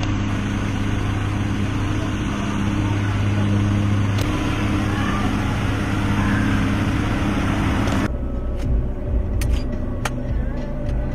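A running engine hums steadily at a low pitch and cuts off abruptly about eight seconds in. Quieter outdoor background with a few sharp clicks follows.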